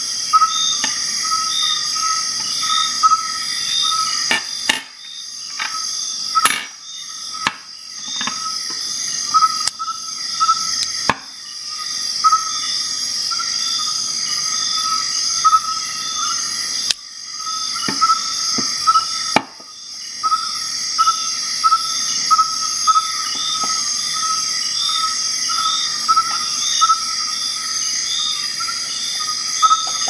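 Insects chirping steadily with a regular pulse of about two a second. Scattered sharp clicks and knocks sound over it.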